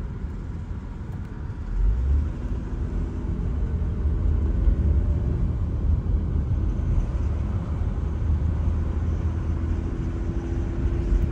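Steady low rumble of a vehicle running, getting louder about two seconds in.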